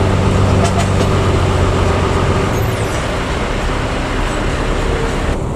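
Luragung Jaya intercity bus under way: its diesel engine and growling 'ngorok' exhaust give a steady low drone over road noise. The drone eases off about halfway through.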